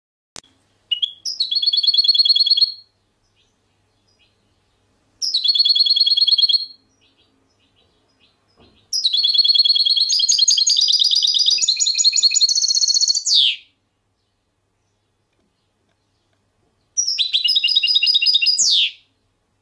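A songbird singing in four separate phrases of fast, rapidly repeated high notes with pauses between them. The third phrase is the longest.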